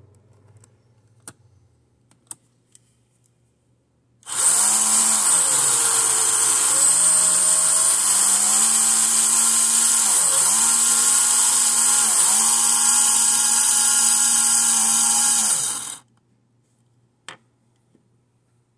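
Tyco 440x2 HO slot car's small electric motor and gears running at high speed, a loud high whine with hiss, its pitch sagging and picking up again several times as the speed changes. It starts about four seconds in and stops suddenly about four seconds before the end, with a few light plastic clicks before and after.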